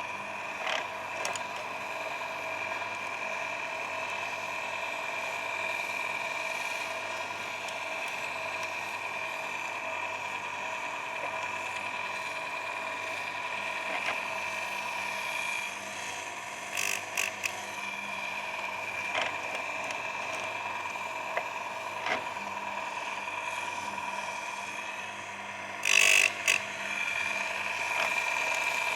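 Electric chainsaw chain sharpener's grinding motor running with a steady whine. Twice, about halfway through and near the end, there is a brief loud harsh grind as the wheel is brought onto a cutter tooth.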